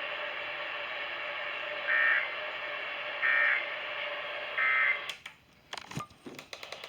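Three short bursts of EAS SAME header data tones from an alert radio, about a second and a half apart, over steady radio hiss. Near the end the hiss drops out and a run of clicks follows.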